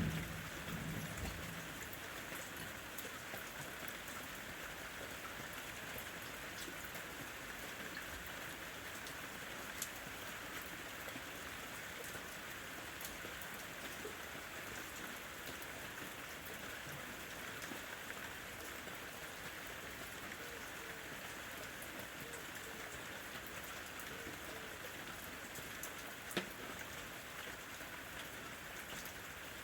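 Steady rain falling, an even hiss with scattered sharper drop ticks. A brief low thump comes right at the start, and one sharp tick about 26 seconds in.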